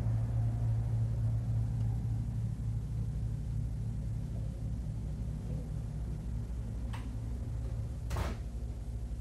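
Fast crew boat's engines running, a steady low drone heard from inside the vessel's interior. A single click about seven seconds in and a brief knock about a second later.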